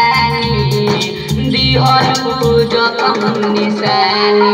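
Bhojpuri song music playing: a steady drum beat with rattling percussion under a sustained melody line.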